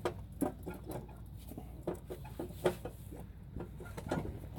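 Irregular knocks and clinks of metal exhaust parts being handled as a header is worked into place on the engine, about half a dozen sharp taps spread through the moment.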